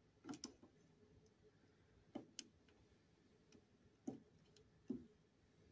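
Faint, scattered clicks and taps, about six in all, as the stepper motor's metal mounting bracket is slid into place against the aluminium frame of an Artillery Sidewinder X1 3D printer's X-axis.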